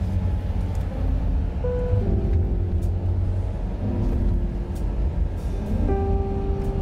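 Background music with held notes that change every second or two, over the low steady rumble of a car driving.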